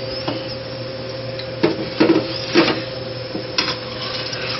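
A metal spatula knocks and scrapes against a frying pan several times, the loudest strikes bunched together in the middle, over a steady hiss and a constant hum.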